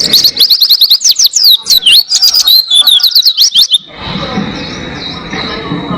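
White-eye (pleci) singing a fast, continuous twittering song of rapid high chirps and sweeping notes. The song breaks off about four seconds in, leaving quieter background noise with a faint steady high tone.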